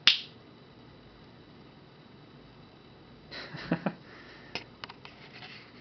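A sharp finger snap right at the start, then quiet room tone, with a short breathy sniff about three and a half seconds in and a few faint clicks after it.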